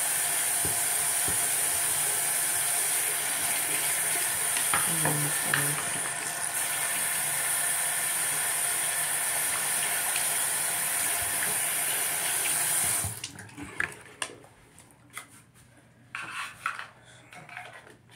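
Bathroom sink tap running steadily, turned off abruptly about thirteen seconds in, followed by a few small knocks and clicks of handling.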